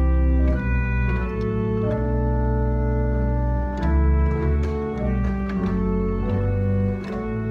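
Organ music: slow, sustained chords over deep bass notes, the harmony shifting every second or so.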